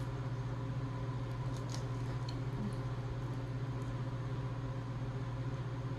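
Steady low hum, with a few faint light clicks between about one and a half and two and a half seconds in.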